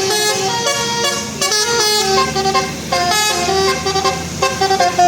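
Bus telolet horn, a multi-tone musical air horn, playing a tune: several horn tones sound together and step from note to note every few tenths of a second without a break.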